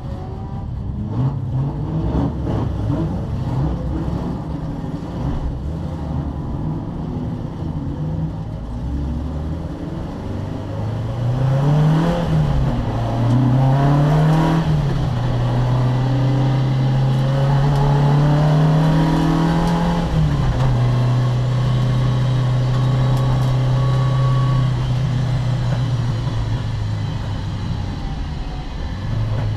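Racing car engine, probably an Opel Kadett C, pulling hard under full throttle. Its note climbs and drops twice in quick succession about halfway through as the gears change, then climbs slowly in a long pull, drops at a shift, and holds at steady revs near the end.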